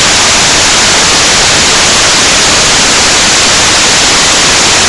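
Loud, steady static hiss, even and unchanging, with nothing else standing out.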